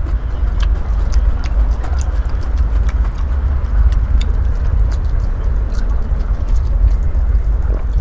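Close-up chewing of raw bitter melon, with irregular crisp crunches and mouth clicks over a steady low rumble.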